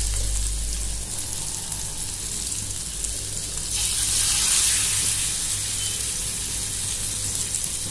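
Masala-coated king fish steaks sizzling in hot shallow oil on a flat tawa. About four seconds in, a second steak is laid into the oil and the sizzle flares up louder and brighter for a second or two before settling back to a steady fry.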